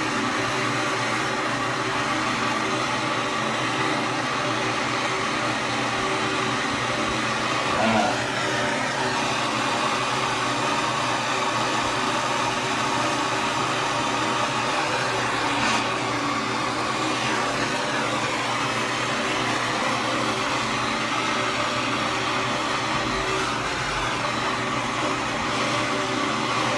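Handheld gas blowtorch flame burning with a steady hiss while it heats a copper pipe joint for soldering.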